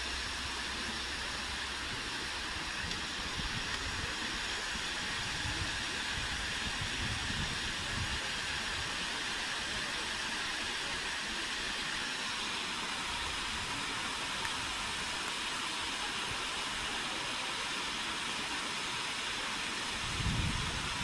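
River water rushing steadily over rocks, an even hiss with no change in level, with a brief low rumble near the end.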